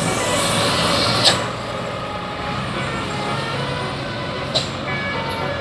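Road traffic with a heavy vehicle going past, louder for the first second or so, then steadier. Two short, sharp clicks, one about a second in and one near the end.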